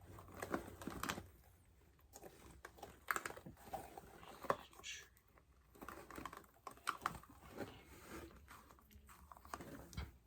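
Small toys and their container being rummaged through by hand, with irregular light clicks and taps.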